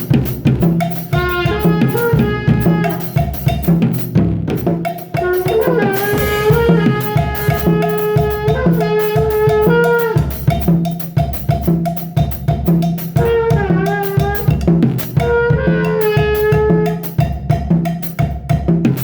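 Music: a drum kit playing a steady beat, with bass drum and snare hits, under a pitched melody line.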